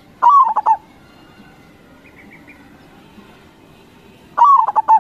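Zebra dove (perkutut) singing its cooing song twice, about four seconds apart. Each phrase opens with a sliding note and runs into a quick string of short coos.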